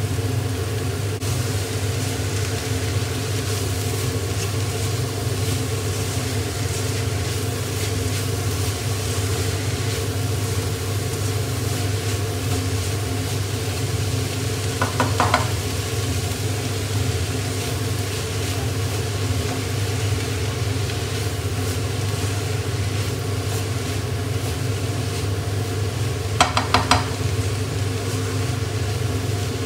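Shredded cabbage and other vegetables sizzling in a nonstick wok on a gas hob while being stir-fried, over a steady low hum. Short bursts of the spatula scraping against the pan come about halfway through and again near the end.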